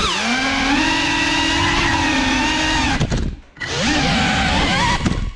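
Motors and propellers of a GEPRC CineLog35 FPV cinewhoop drone whining at a high, fairly steady pitch. The whine drops out briefly about three seconds in, then spools back up with a rising pitch.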